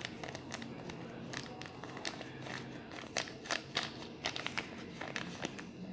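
Irregular sharp clicks and light taps, some in quick clusters, as a spoon and a plastic container are handled while borax is mixed into water.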